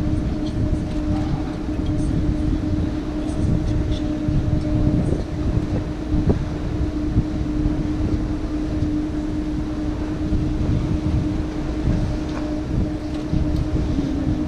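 Canal boat's motor running with a steady hum, over a churning low rumble.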